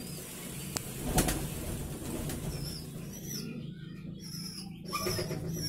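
A pigeon with a respiratory infection (cough and cold, 'bengek'), just dosed with tetracycline powder in its airway, making a few short sudden sounds, the loudest about a second in, over a steady low hum.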